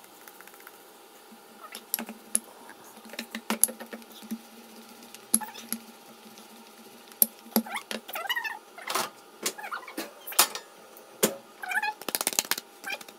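Wooden rolling pin rolling out pizza dough on a floured stone countertop: scattered knocks and taps, with a fast run of clicks near the end. A few short wavering high-pitched sounds come in over the second half.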